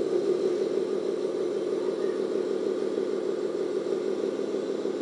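Remote-control JDM-196 road-rescue tow truck driving slowly with a load on its flatbed, its drive making a steady, even engine-like hum.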